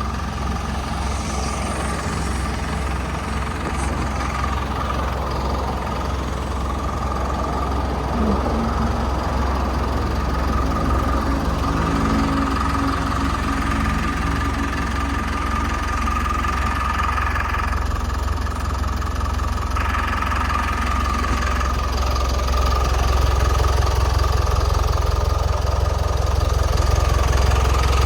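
Hyundai HD78 truck's diesel engine idling steadily, with a constant high whine over the low drone.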